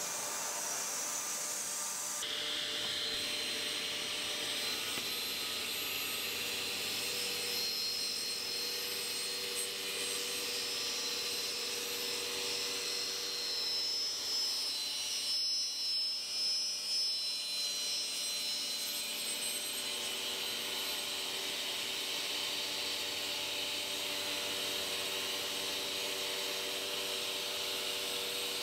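Vertical panel saw running, its blade ripping about 3 mm off the long edge of an old pine door as the saw head travels along the beam, with dust extraction drawing on the saw head; a steady machine noise with a high hiss.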